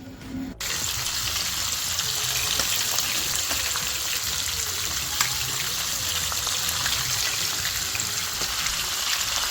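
Food frying in hot oil: a steady sizzle with scattered small crackles, starting abruptly about half a second in.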